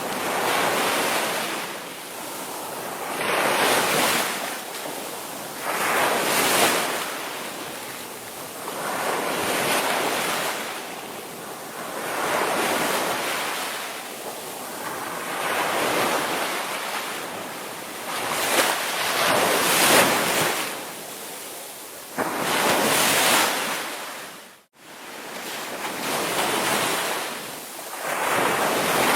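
Indian Ocean waves breaking and washing in, each surge of surf swelling and fading about every three seconds. The sound cuts out for an instant near the end.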